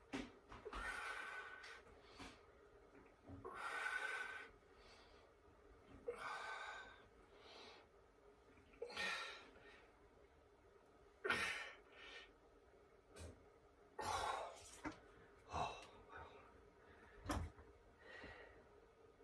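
A man breathing hard with exertion while curling an X3 resistance-band bar: forceful gasping exhalations, one every two to three seconds. A few short, sharper knocks come in the second half.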